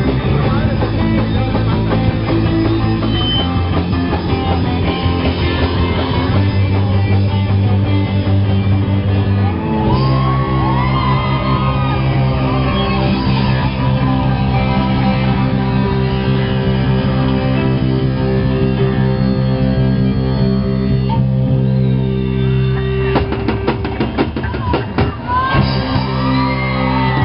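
Live rock band playing loud, with distorted electric guitar and bass holding low chords over drums. A run of sharp hits comes about four seconds before the end.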